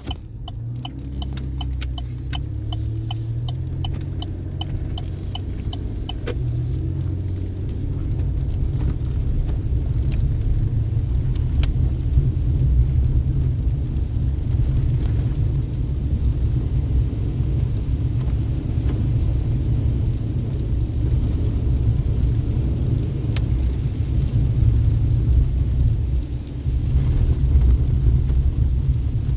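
Chevy Colorado Z71 pickup driving, heard from inside the cab: a steady deep rumble of engine and tyres on the road. A regular ticking, about twice a second, runs through the first six seconds.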